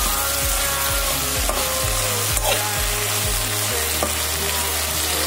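Kangkong (water spinach) leaves and stems sizzling in hot oil in a pan as they are stirred, with a few clicks and scrapes of the metal utensil against the pan. A low, steady music beat runs underneath.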